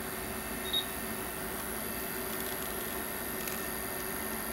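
Steady electrical hum from a solar inverter running in repair mode on battery power, with one brief high-pitched blip about a second in.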